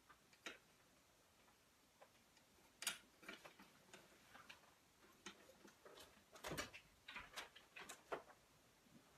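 Faint, scattered clicks and rustles from a fabric curtain panel being hung on a curtain rod, growing busier about three seconds in, with a few heavier knocks near the end.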